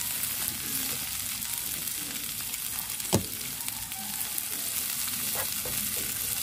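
Minced garlic and red onion sizzling steadily in hot oil in a nonstick frying pan, stirred with a wooden spatula. A single sharp knock comes about three seconds in.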